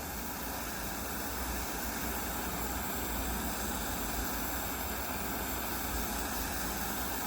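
A handheld gas torch burning with a steady flame, heating the tip of a screwdriver.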